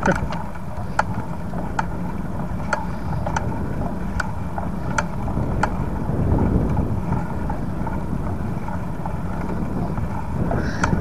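Wind and rolling rumble on a bicycle-mounted action camera while riding, with sharp clicks about once a second.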